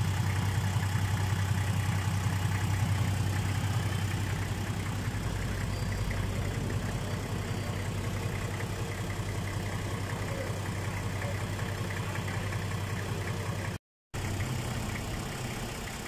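Nissan Safari six-cylinder diesel engine idling steadily and evenly, now that its injector pipes are fitted in the correct 1-5-3-6-2-4 firing order. The sound cuts out for a split second near the end.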